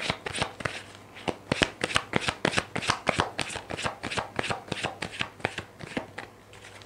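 A deck of tarot cards being shuffled by hand: a quick, rapid run of card slaps and riffles, about five a second, thinning out and stopping near the end.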